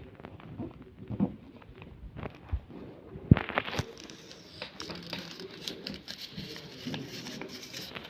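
Paper being handled and folded: rustling and crinkling with scattered taps, the loudest a sharp tap a little over three seconds in, after which the rustling turns louder and brighter.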